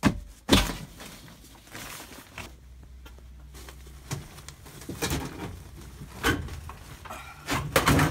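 Scattered knocks and rustling as foil-wrapped flexible ductwork and its sheet-metal fittings are handled, over a low steady hum.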